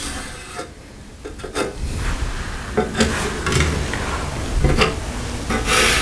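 Handling noise from marking and picking up tools on a wooden workbench: a marker rubbing on a steel bar and sheet-steel panel, with a few light knocks and clicks of metal and tools being moved.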